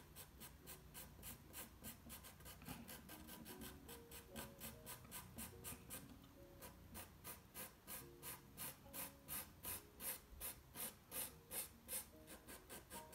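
Pencil scratching on toned drawing paper in short, regular hatching strokes, about three a second, growing louder in the second half.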